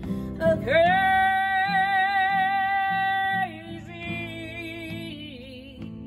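A woman singing to her own strummed Taylor acoustic guitar. About a second in, her voice slides up into one long note with vibrato, held for nearly three seconds, then falls to lower, shorter phrases, while the guitar keeps a steady strumming rhythm.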